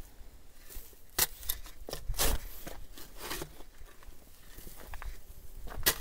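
Small shovel digging a shallow hole in grassy soil: a few separate scrapes and crunches of the blade biting into the dirt, roughly a second apart, the loudest about two seconds in.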